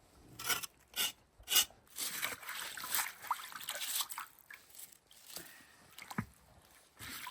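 Three short rasping strokes, then steady scrubbing with water splashing and sloshing, as a slab of cured pork with burnt skin is scraped and washed.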